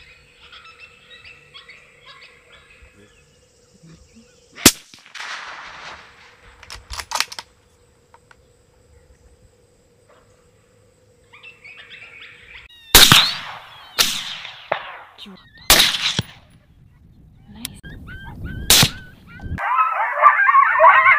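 A string of rifle shots, sharp cracks about four seconds in and around seven seconds, then four more over the last eight seconds, several with a trailing echo. Near the end comes a burst of busy animal calls.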